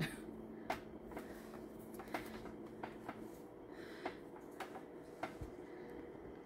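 Faint, scattered clicks and soft rustles of hands handling a doll, about ten small ticks over quiet room tone.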